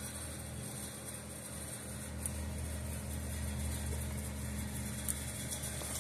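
Steady low mechanical hum of a running machine in the workshop, with two faint clicks, about two and five seconds in.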